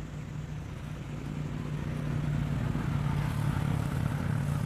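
A motor vehicle engine running with a steady low hum, growing louder from about a second and a half in as if drawing nearer.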